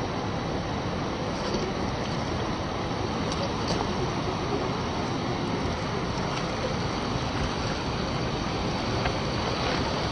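Steady rush of water from a waterfall, an even hiss with a few faint ticks over it.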